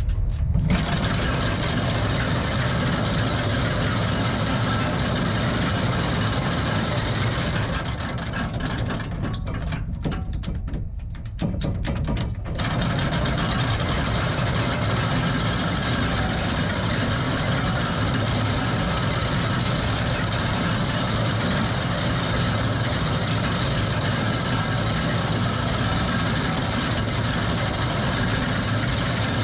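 Anchor chain running out over a yacht's vertical anchor windlass as the anchor is let go. It runs steadily, except for a pause from about 8 seconds in, when only a low hum is left, and it starts again about 12 seconds in.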